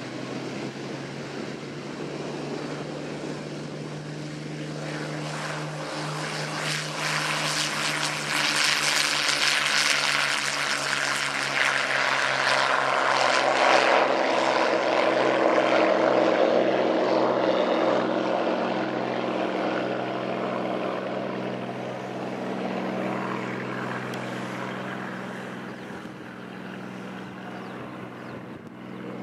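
Hawker Hurricane's Merlin V12 piston engine at full takeoff power, growing louder as the fighter runs past and lifts off, then fading as it climbs away.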